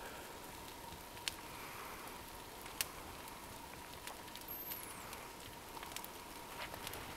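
Brush pile of broken branches burning, with a faint steady hiss and occasional sharp pops, two of them distinct about a second and a half apart.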